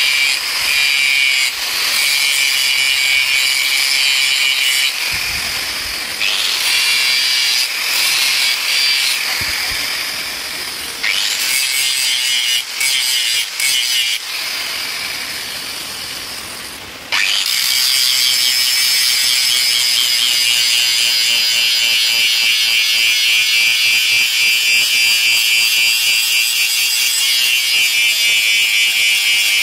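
Handheld angle grinder grinding a steel machete blade, its pitch and loudness wavering and dipping as the disc is worked on and off the metal. About seventeen seconds in it bites in hard and grinds steadily.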